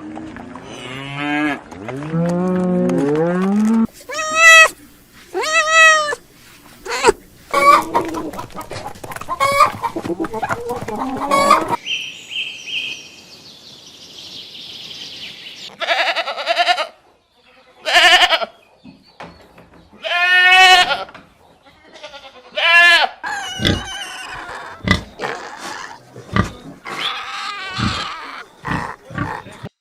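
Goats bleating in a string of separate loud calls, with abrupt changes between short clips and other farm animal calls mixed in.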